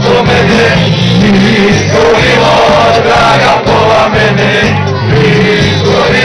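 Live band playing a Croatian pop-folk song with singing, loud and steady. Guitars and a line of low notes keep an even beat under the vocal melody.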